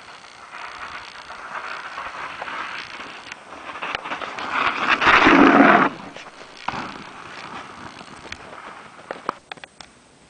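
Downhill mountain bike rolling in fast on the trail, its tyre noise building to a peak as it rides up a ramp and cutting off abruptly as it leaves the ground, then a single thud about a second later as it lands. A few sharp clicks near the end.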